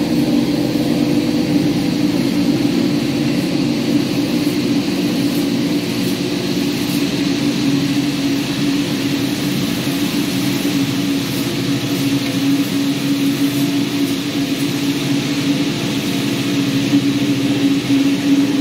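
Pressure washer running steadily while its high-pressure jet sprays water onto a carpet: an even motor hum under the hiss of the spray.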